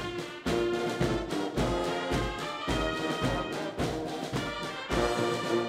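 Brass band music: trumpets and trombones holding sustained chords over a steady low beat.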